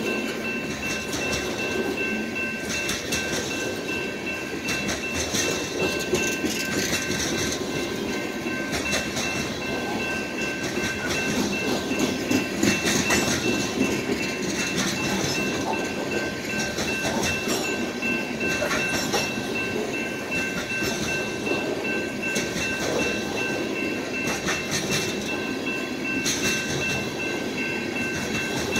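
Freight train of loaded covered hopper grain cars rolling past, the wheels rumbling and clacking steadily over the rails. A steady high ringing tone from the grade-crossing signal bell sounds over it.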